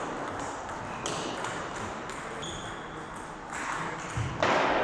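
Table tennis rally: the plastic ball clicking off the bats and the table, with a few short shoe squeaks on the wooden floor. A louder noisy burst comes near the end.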